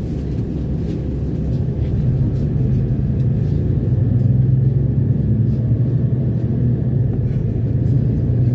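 City bus engine and road noise heard from inside the cabin while under way: a steady low drone with a pitched hum that grows louder about two seconds in.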